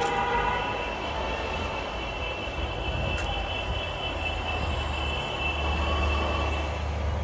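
Car horns honking in street traffic: a loud held horn cuts off about half a second in, while fainter horns keep sounding over the wash of traffic. A vehicle engine's low rumble grows louder near the end.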